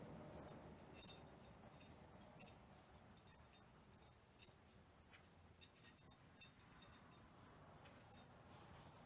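Faint, irregular metallic clinking and jingling: many light taps with a bright, ringing edge, unevenly spaced.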